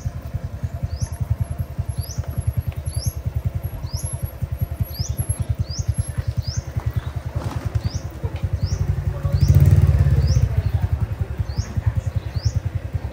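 A small engine running steadily with a rapid low chugging, swelling louder about ten seconds in. A bird repeats a short rising chirp over it, roughly twice a second.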